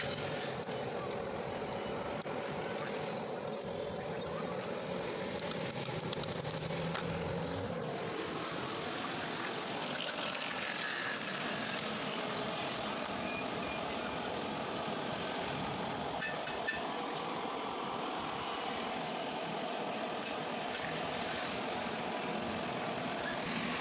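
Steady background noise of vehicle traffic, with a couple of brief faint clicks.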